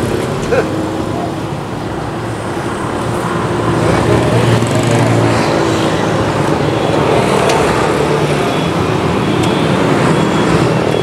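Road traffic going by, with engine noise swelling about three seconds in and then holding steady.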